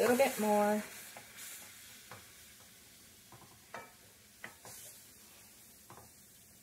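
A spoon stirring chicken stock into flour-coated vegetables in a pot, with a faint sizzle and a few light taps and scrapes against the pot about a second apart. It opens with a short hummed voice sound, the loudest thing here.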